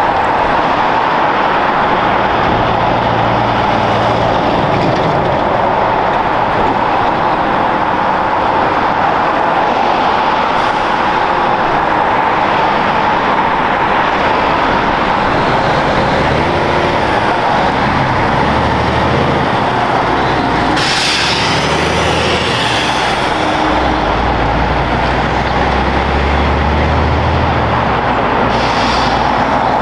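Heavy trucks and cars passing on the road: steady traffic and tyre noise under the deep drone of diesel truck engines. There is a short hiss about two-thirds of the way through, and a truck engine drones loudest near the end as a truck and trailer pull away.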